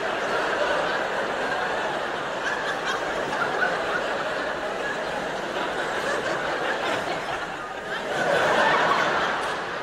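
Audience laughing steadily, swelling louder near the end.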